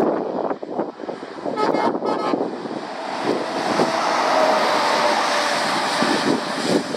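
Scania R580 V8 lorry pulling a container trailer approaches and passes close by on a wet road. Two short horn toots sound about two seconds in, then the engine and the hiss of tyres on wet tarmac swell to their loudest as it goes past.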